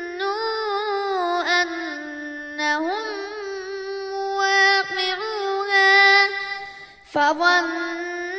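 A child's voice reciting the Quran in melodic tajweed style, holding long drawn-out notes with ornamented pitch turns. There is a short pause for breath about seven seconds in.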